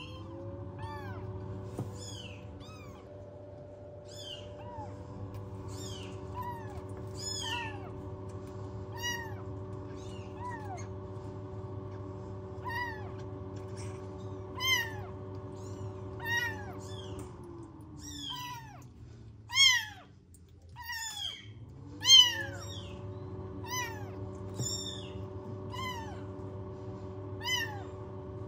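Young kittens mewing over and over in short, high cries, loudest about two-thirds of the way through. Under them a steady fan hum, from the kitten warming box's ventilation, winds down a little past halfway and spins back up a few seconds later.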